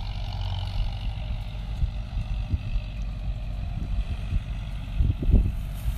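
Farm tractor machinery running steadily at work in a hayfield, a low engine rumble, with a couple of louder low surges near the end.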